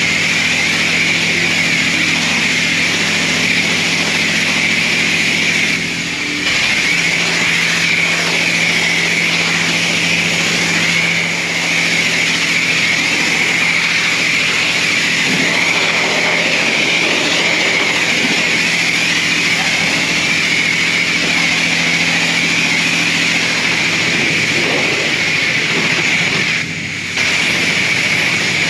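High-pressure spray from a car wash bay wand over a steady pump hum, easing off briefly twice.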